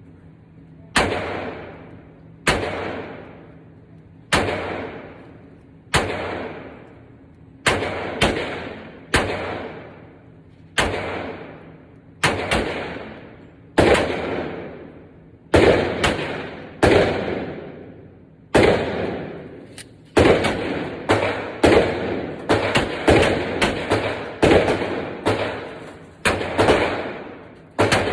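Taurus G3C 9mm pistol being fired, about two dozen single shots, each followed by a short ringing echo. They come steadily a second or two apart at first, then faster, about one a second or quicker, in the last third.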